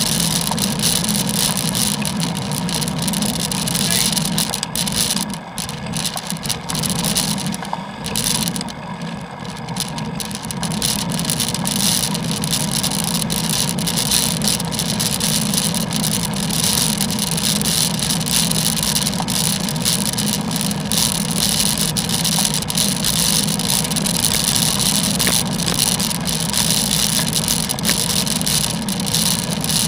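Steady wind and road noise on a bicycle-mounted action camera during a ride in the rain, easing off for a few seconds about five to ten seconds in.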